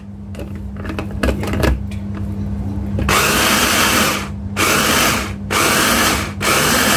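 Olsenmark electric hand blender on its chopper-bowl attachment, run in three short pulses of about a second each from about three seconds in, grinding a wet green masala of chillies, coriander, tomato, onion and yogurt into a paste. Before the pulses there are a few clicks of the bowl being handled.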